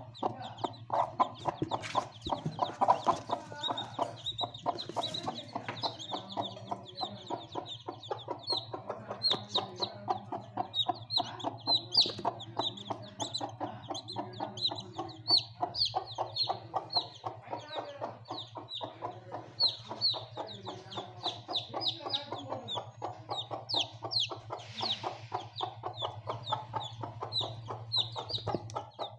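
Newly hatched chicks peeping continuously, many short high peeps falling in pitch and overlapping, over a steady low hum.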